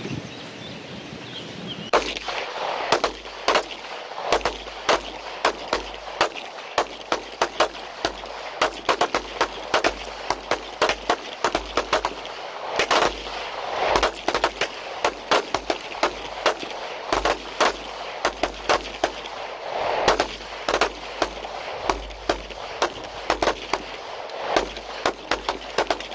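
Pistols fired by several shooters at once: an irregular string of shots starting about two seconds in and going on without a break, often several close together.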